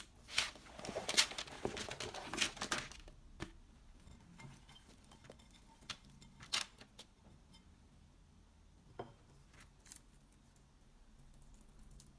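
Raw potato chunks tipped onto a parchment-lined tray of vegetables: a close cluster of soft knocks and paper rustles over the first three seconds. Then a few scattered taps and rustles as sliced onion is emptied from a ceramic bowl and the pieces are handled.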